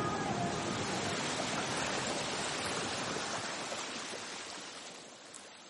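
Ocean surf: a steady rushing wash of waves that fades out gradually.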